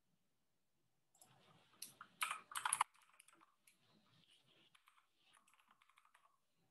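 Computer keyboard keys clicking: a loud cluster of keystrokes about two to three seconds in, then faint scattered taps.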